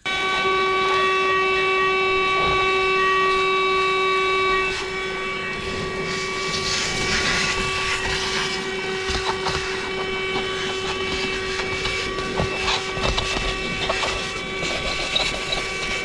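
Motor of a CherylonCar 12-volt corded handheld car vacuum running with a steady high whine, a little louder for the first few seconds. Its narrow crevice nozzle works over a rubber floor mat, and from about six seconds in there are scattered crackles and rattles of debris being sucked in.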